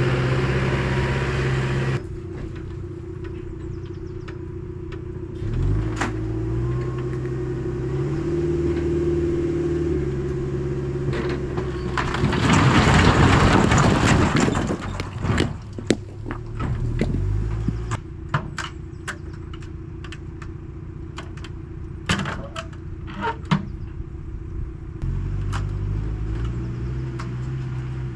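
Diesel engine of a mini excavator or tractor running, its pitch shifting a few times, with a loud scraping rush of rock for a couple of seconds about halfway through. Scattered sharp knocks and clicks of rock follow.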